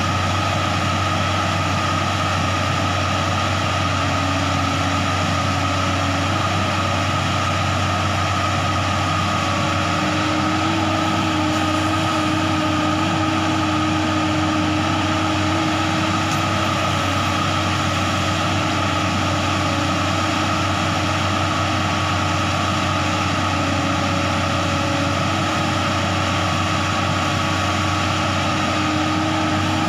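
JCB 205 tracked excavator's diesel engine running steadily with a constant hydraulic whine as it digs and swings bucket-loads of soil into a tipper truck.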